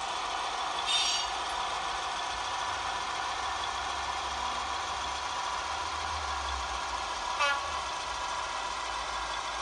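Model locomotive sound decoder playing the Class 58 diesel engine sound through the model's small speaker, running steadily as the locomotive drives along, with a low rumble swelling in the middle. A short high-pitched burst about a second in and a brief pitched sound about seven and a half seconds in.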